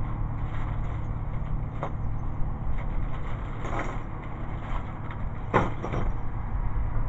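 Steady low rumble with a few brief clicks and rustles as hands handle a plastic bag on a shooting bench, about two seconds in, around four seconds, and twice near six seconds.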